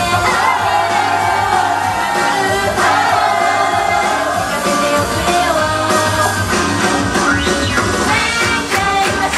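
Live rock music with young women's voices singing together into microphones over a loud band backing with steady drums.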